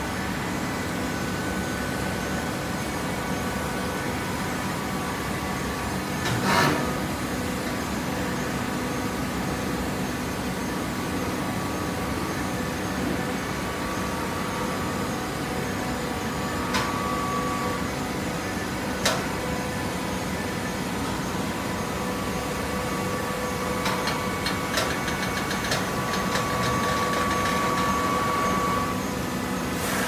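Automatic hydraulic baler running with a steady hum of motor and pump carrying several held tones. A loud clank comes about a fifth of the way in, two sharp clicks follow about halfway through, and near the end a run of rapid clicks sounds while a whine grows stronger.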